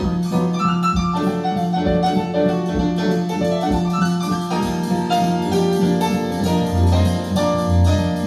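Piano music played back over Paiyon P81 loudspeakers driven by a Qinsound 50A amplifier, with a low pulse about once a second. A deeper bass line comes in about six and a half seconds in.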